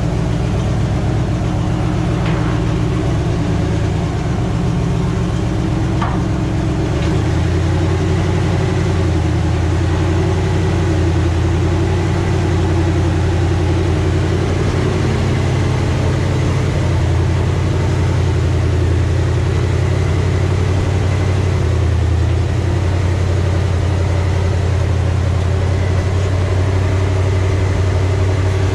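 A truck's 350 small-block V8 running steadily, its low note growing stronger about seven seconds in as the engine takes load.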